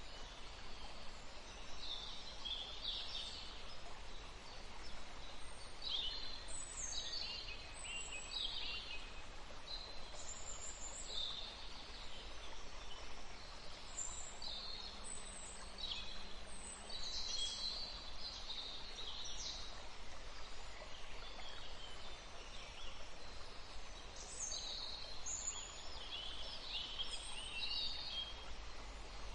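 Wild birds calling, many short, high chirps and call phrases scattered throughout, over a steady background hiss.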